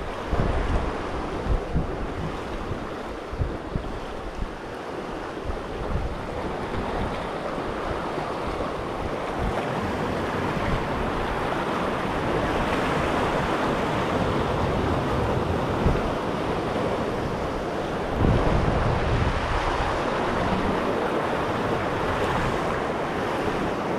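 Sea surf washing and foaming over coastal rocks, with a louder surge of water about three-quarters of the way through. Gusts of wind rumble on the microphone, mostly in the first few seconds.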